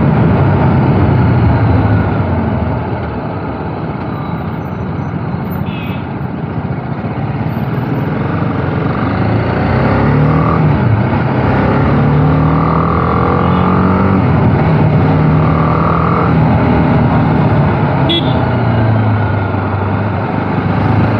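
BMW G 310 R single-cylinder motorcycle engine running under way with heavy wind rush. It eases off a few seconds in, then rises in pitch as the bike accelerates. Two held horn notes from nearby traffic sound around the middle.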